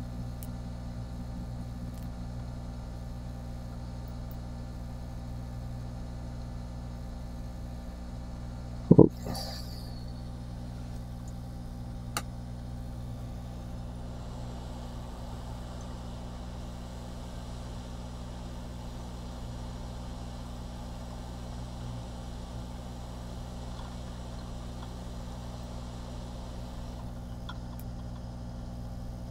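Steady electrical hum with static hiss on the recording. There is one loud click about nine seconds in and a faint tick a few seconds later.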